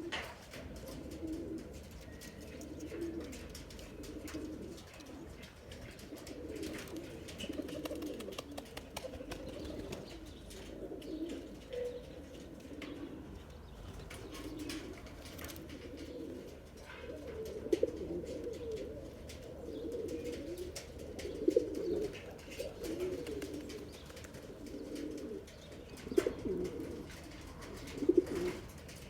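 Male Sanaani pigeon cooing in a deep, throaty voice, call after call, with a few louder coos in the second half.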